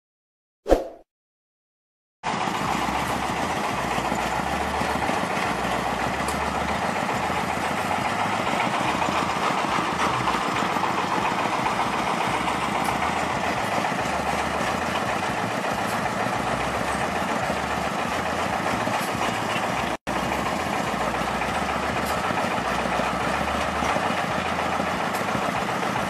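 A short sharp sound about a second in, then from about two seconds a steady engine running with a constant rattle, the engine-driven belt conveyor loading sand into a truck. The sound cuts out for an instant near the end.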